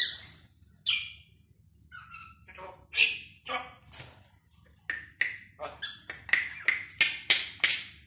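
African grey parrot calling: a few separate short squawks, then from about five seconds in a quick run of short calls, about three a second.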